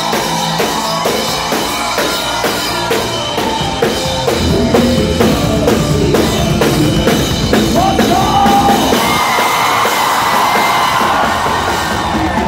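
Rock band playing live, the drum kit keeping a steady beat under sung vocals that hold long notes in the second half.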